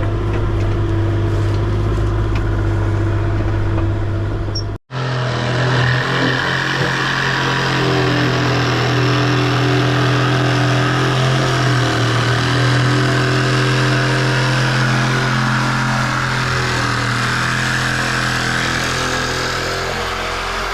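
A large engine running steadily. About five seconds in the sound cuts out abruptly and resumes with a steady engine at a somewhat higher pitch.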